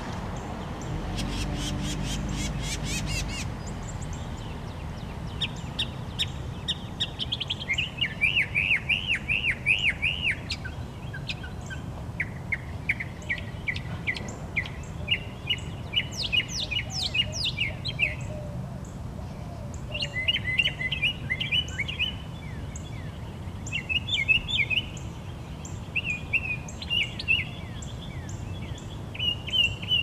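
Northern mockingbird singing a long, varied run of phrases, repeating each note several times before switching to a new one. In the first few seconds a low mechanical hum with rapid ticking sounds under it.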